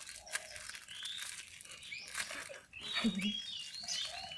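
Crinkling and rustling handling noises with scattered small clicks, and a brief murmur of a child's voice about three seconds in.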